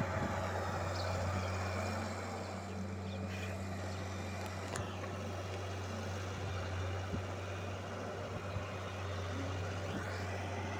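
Wheeled excavator's diesel engine running steadily, a constant low drone that holds one pitch with no load changes or bucket impacts.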